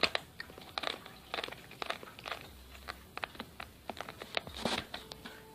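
A cat biting and chewing on something: a run of small, irregular crunches and clicks.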